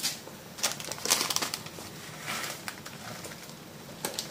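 Plastic instant-noodle packet crinkling and rustling in several short bursts, over a steady hiss from noodles boiling in a pan.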